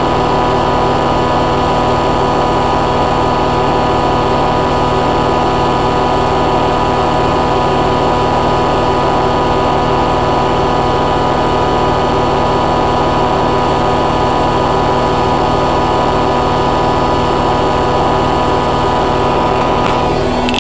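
Hoover A3786 Logic washing machine on its final high-speed spin, the drum and motor running at a steady speed with a whine of several steady tones. Near the end the sound shifts and the higher tones drop away.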